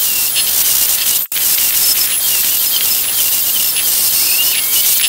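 Angle grinder running against the steel wear plate: a loud, hissing grind with a high whine that wavers and sags as the disc is loaded. It drops out for a moment about a second in.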